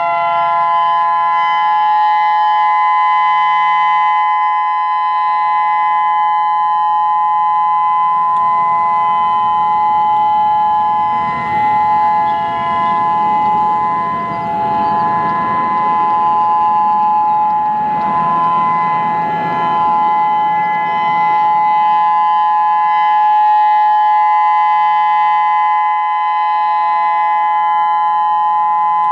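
Federal Signal EOWS 612 electronic siren sounding a loud, steady alert chord of several held tones, with one set of its drivers run off a 200-watt stereo amplifier. A rushing noise swells under the tones through the middle and then fades.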